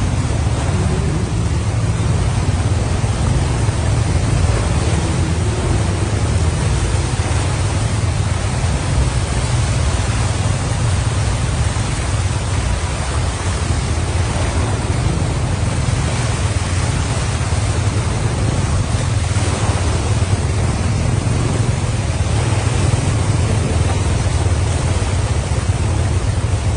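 Steady rushing and splashing of floodwater churned up by cars wading slowly through a flooded road, over a continuous low rumble.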